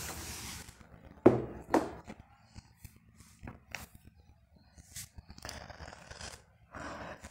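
Handling noise: a few sharp clicks and taps, the loudest about a second in, and two short rustling scrapes near the end.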